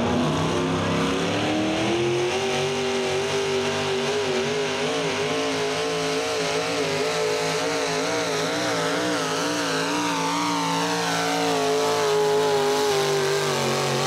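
Pro Stock 4x4 Chevrolet pulling truck's engine at full throttle as it pulls the weight-transfer sled. It rises in pitch over the first two seconds, then holds high with the pitch wavering quickly up and down, and eases slightly lower near the end.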